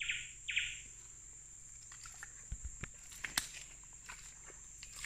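Rainforest creek ambience: a steady high insect drone throughout, two short bird calls right at the start, and a few sharp knocks and low thumps about halfway through.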